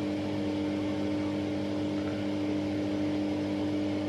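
Steady mechanical hum: a few fixed low tones over a soft, even rushing noise.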